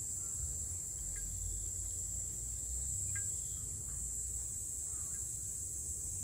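A steady, high chorus of cicadas buzzing, over a low rumble. A couple of faint, brief ringing drips from a suikinkutsu, heard through its bamboo listening pipe, come about a second and about three seconds in, nearly buried by the cicadas.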